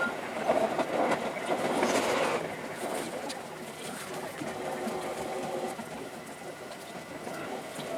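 Seibu Shinjuku Line electric train running on the rails, louder for the first two and a half seconds, then quieter with faint steady tones.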